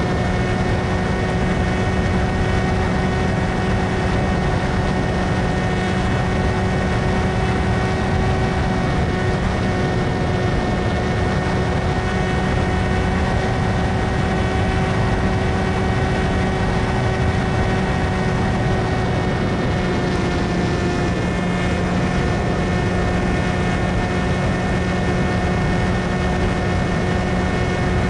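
Electric motor and propeller of an S800 FPV flying wing running at a steady throttle: a constant whine over rushing air, heard from on board. The pitch shifts slightly about twenty seconds in.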